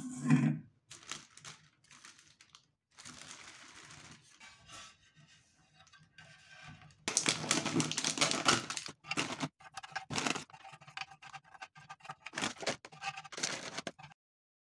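Food-prep handling sounds: a spoon knocking against a stainless steel bowl at the start, then plastic bag rustling. From about halfway, a crinkly plastic cracker packet is handled loudly as crackers are tipped out, followed by short clatters as crackers are set down on a slate board; the sound cuts off suddenly near the end.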